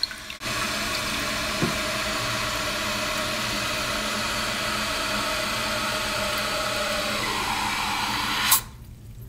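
Toilet tank fill valve refilling the cistern: a steady rush of water hissing in, rising in pitch near the end, then shutting off abruptly as the float reaches the set water level, about eight and a half seconds in.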